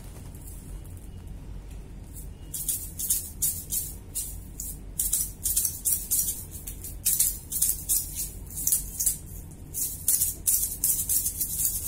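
Small hard candies rattling in a container that is shaken in irregular bursts, roughly twice a second, starting a couple of seconds in.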